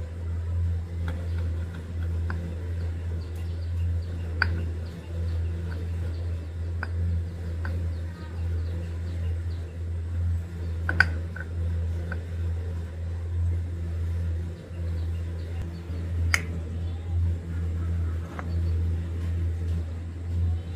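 A small engine running steadily with a low hum, with a few sharp clicks or taps scattered through.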